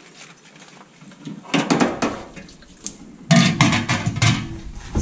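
Stainless steel Surge milking machine parts clattering and knocking against each other and the steel sink as they are handled during washing, in two bouts: a short one about a second and a half in, and a louder one just past three seconds in.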